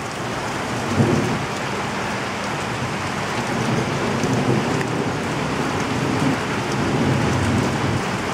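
Heavy rain pouring down steadily, with a low rumble of thunder rolling in from about a second in.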